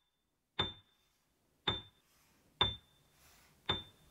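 A short, bright ding repeated four times, about once a second, each strike ringing on briefly at one high pitch: a timing-cue sound effect counting through the learner's turn to repeat the word.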